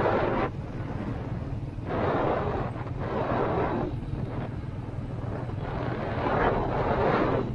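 Motorcycle engine running steadily at cruising speed, with wind buffeting the microphone in gusts, strongest about two seconds in and again near the end.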